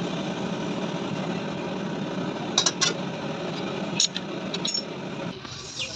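A steady mechanical hum that stops about five seconds in, with a few sharp metallic clinks of tools: two close together, then one more a little over a second later.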